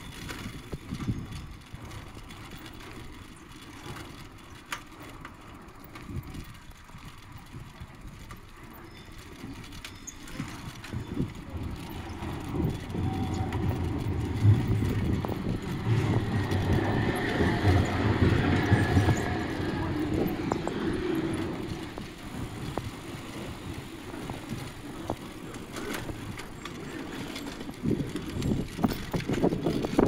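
Bicycle riding over brick paving, with tyre noise, rattle and wind on the microphone. A tram passes in the middle, getting louder for about ten seconds with a low hum and a higher whine, then fading.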